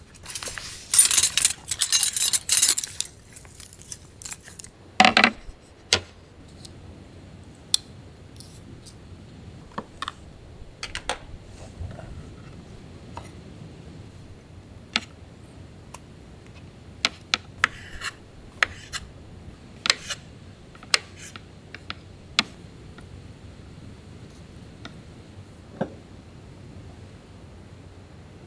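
Camp cooking gear being handled: a fabric and mesh gear bag rustles busily for the first few seconds, a single thud comes about five seconds in, then scattered light clicks and taps of utensils and food being handled and set down on a table.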